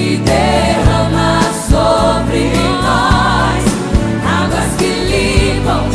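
Christian worship song with sung vocals over a band, with steady bass and regular drum beats.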